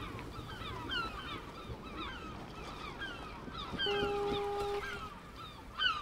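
A flock of birds calling: many short, downward-sliding calls overlapping one another. A steady tone sounds for about a second around four seconds in.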